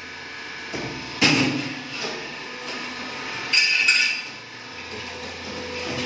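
Metal-on-metal clanks and knocks in a workshop, a few irregular strikes: one about a second in, then two more a little past halfway, each ringing briefly.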